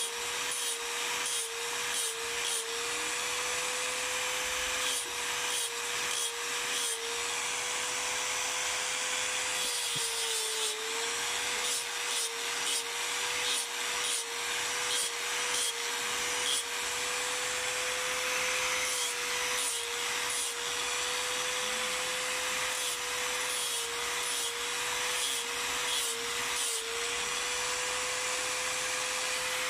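Handheld electric angle grinder running with a steady whine, its pitch dipping briefly again and again as the spinning disc is pressed into water buffalo horn, over a rough grinding rasp. The dips come in clusters: in the first few seconds, around ten seconds in, and again near the end.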